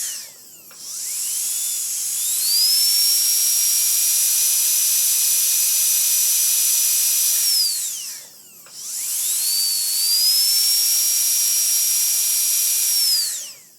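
Dentist's drill: a high-pitched whine that winds down and back up near the start, holds steady, winds down and up again around the middle, then winds down at the end.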